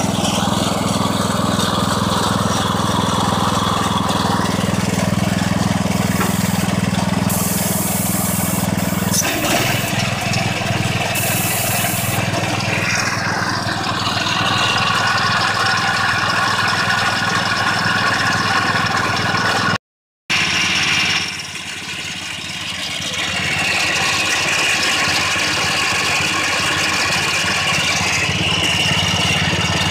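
Harbor Freight Predator 14 hp single-cylinder engine on a garden tractor, running steadily at idle. About nine seconds in, its note drops a little lower.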